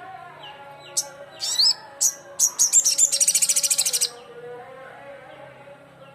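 Crimson sunbird (sogon) calling: a few sharp, high chips, then a rapid high trill of about a dozen notes a second lasting under two seconds.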